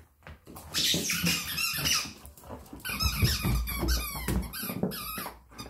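A dog's squeaky ball toy squeaking over and over as the dog bites on it: quick high squeals that waver in pitch, in two bouts, about a second in and again from about three seconds.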